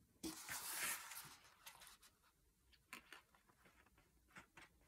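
Stiff card paper rustling under hands for about a second near the start, then a few faint ticks and scrapes as a glue bottle's nozzle is worked along the card tabs.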